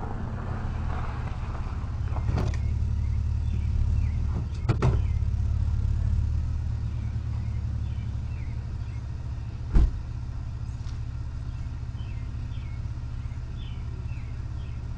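An Audi car's engine running as the car pulls in and stops, a steady low hum that is louder for the first few seconds and then settles. A few sharp knocks sound in the first five seconds, and a single heavy thump comes about ten seconds in.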